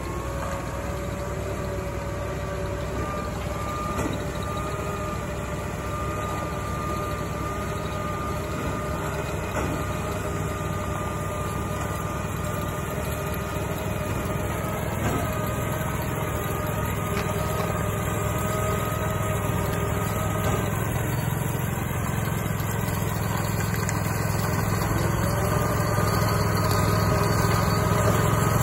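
Ride-on power trowel's engine running steadily as its rotating blades finish fresh concrete, a low hum with a steady whine above it. It grows gradually louder as the machine comes closer.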